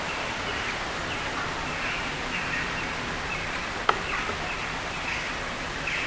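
Steady outdoor hiss with faint, short bird chirps repeating every second or so, and one sharp tap about four seconds in.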